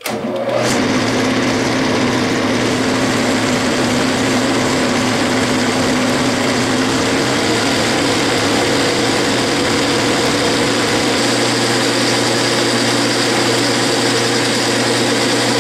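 Metal lathe starting up and running steadily under load, its tool turning down a steel bar spinning in a three-jaw chuck.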